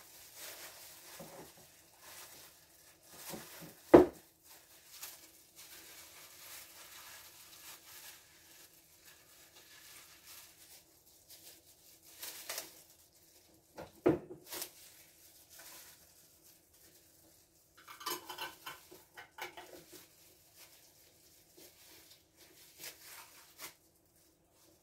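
Kitchenware clattering as glass jam jars, their lids and a spoon or ladle are handled to fill and close the jars: scattered clinks with a sharp knock about four seconds in and another about fourteen seconds in.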